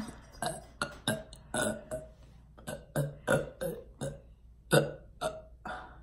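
A girl burping in a rapid run of many short, small burps, about fifteen in six seconds.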